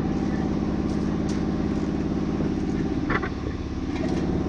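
A motor or engine running steadily in a workshop, a constant pitched hum, with a couple of light metallic knocks about a second in and near the end.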